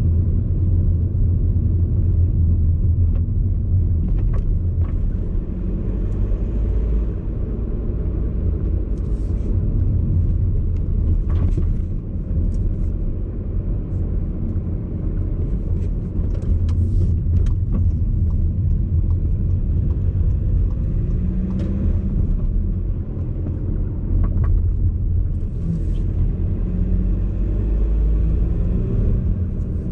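Inside a VW Golf Alltrack's cabin at low speed: steady low road and tyre rumble, with short rattling knocks several times over bumps, which the owner puts down to the passenger-side suspension.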